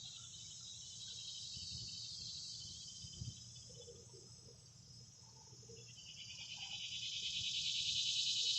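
Cicadas buzzing in the trees: a steady high, shrill chorus that eases off a little midway, then swells louder with a fast pulsing toward the end. It is a sound typical of extremely hot days.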